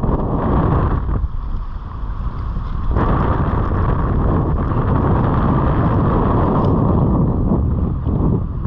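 Strong wind buffeting the microphone: a heavy, steady rumble with no pitch to it, which eases briefly between about one and three seconds in.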